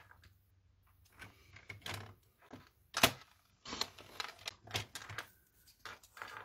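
Paper trimmer cutting small squares of patterned paper: a series of short clicks, taps and sliding strokes from the cutter and the paper, with the sharpest click about three seconds in.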